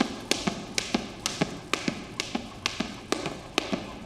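Jump rope skipping: sharp taps in a steady rhythm, about four a second.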